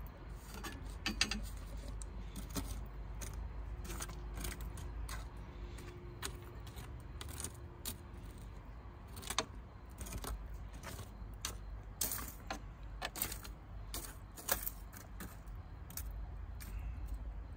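Glowing wood embers in a wood-fired oven crackling with irregular, sharp pops, over a low steady rumble.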